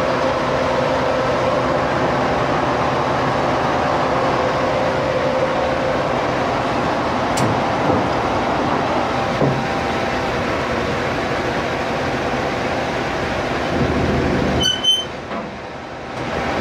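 Terex 220-ton mobile crane's diesel engine running steadily with a constant whine while the outriggers are worked from the side control panel. A few short beeps come near the end, then the engine sound eases off briefly.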